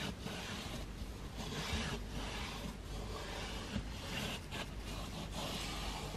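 Suede applicator cloth rubbing on a leather car seat, working leather coating into the seams and gaps: a quiet, continuous rubbing with faint, uneven strokes.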